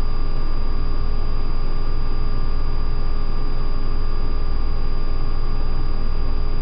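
Steady low hum and hiss with a few constant faint whining tones, unchanging throughout. No separate sound from the sleeping dog stands out.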